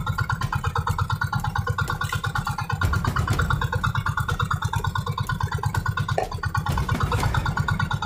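Outrigger fishing boat's engine running steadily under way, with a fast, even beat to its note.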